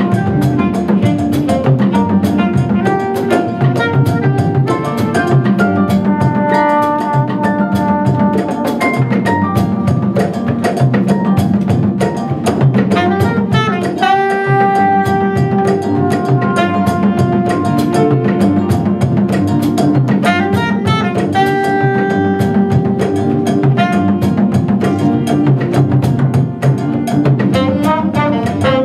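Live jazz band playing: saxophone and trombone carry the melody over a steady groove of congas, drum kit and double bass. The horns hold long notes together about halfway through and again later.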